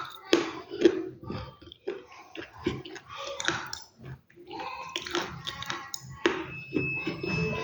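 Close-miked chewing of crunchy food: irregular crunching bites mixed with wet mouth sounds.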